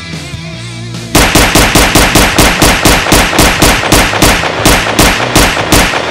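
Gunfire sound effect: a rapid string of loud pistol shots, about four or five a second, starting about a second in and stopping near the end. It is added in editing, not real fire, since the gun is a cardboard replica.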